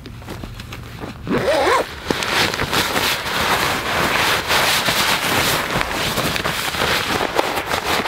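A zipper drawn open about a second and a half in, then a steady crinkly rustling of tent fabric being handled.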